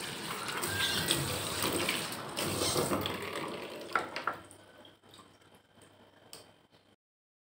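Tap water running and splashing into a pan of bean sprouts in a stainless-steel kitchen sink; the water stops about four seconds in, followed by a few light knocks and near silence.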